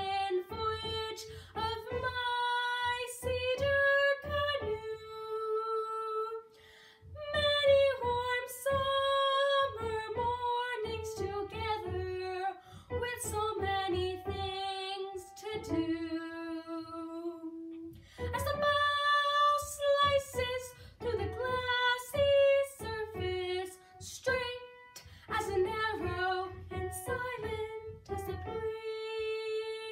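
A young girl singing solo, holding long sung notes in phrases broken by short pauses, over a low instrumental accompaniment.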